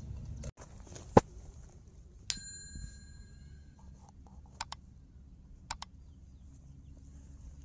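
A bell-like ding rings out about two seconds in and fades over about a second, after a sharp click about a second in. Two quick double clicks follow; the sounds are typical of an on-screen subscribe-reminder animation.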